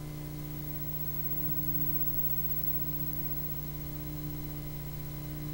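Steady electrical hum with a low drone and an overtone, over an even hiss from the recording or sound system; no speech.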